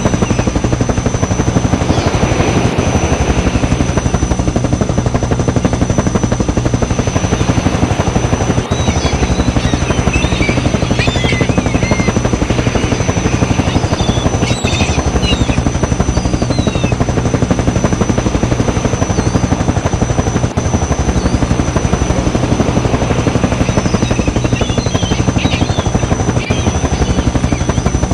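Helicopter running steadily, its rotor giving a rapid even chop over a constant engine drone, with a steady high whine above.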